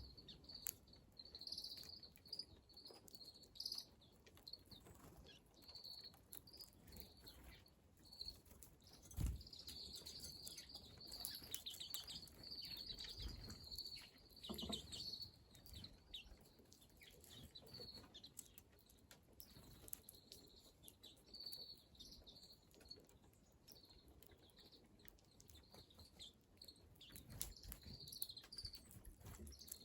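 Small wild birds calling with short, high chirps, often in quick runs, heard faintly throughout. A few soft thumps, the loudest about nine seconds in.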